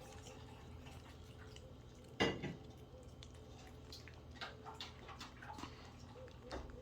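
Cats eating treats: small scattered clicks and taps of treats and a dish, with one louder knock about two seconds in.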